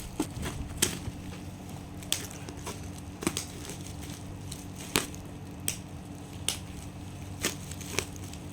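Packaging and plastic parts being handled during unboxing: scattered light clicks and crackles at irregular intervals, over a low steady hum.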